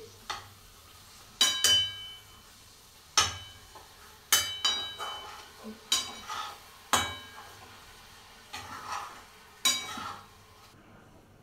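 A metal spoon stirring pav bhaji in a metal pan on a gas burner. There are repeated sharp clinks of spoon against pan, every second or so, each ringing briefly, with scraping and a faint sizzle between them.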